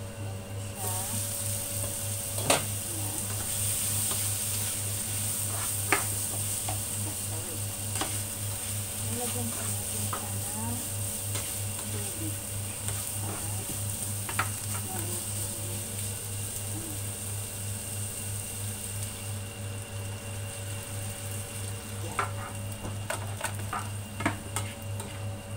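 Mixed vegetables sizzling in a nonstick frying pan as they are stir-fried with a spatula, which knocks against the pan now and then. The sizzle comes up about a second in as the pan is uncovered, and dies down near the end, where the knocks come more often.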